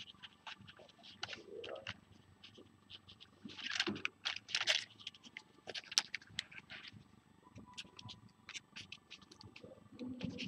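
Small handling noises of tweezers and a motor wire being worked through a foam RC model plane's fuselage: scattered light clicks and ticks, a stretch of scraping and rustling a few seconds in, and one sharper click about six seconds in.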